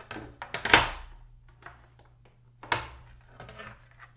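Plastic model parts handled and fitted onto a plastic carrier deck section: a sharp plastic click under a second in and another about two seconds later, with lighter taps and rubbing between.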